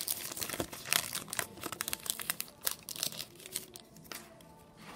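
Foil trading-card pack wrapper crinkling and tearing as it is ripped open and the cards are pulled out: a rapid run of sharp crackles that thins out after about three seconds.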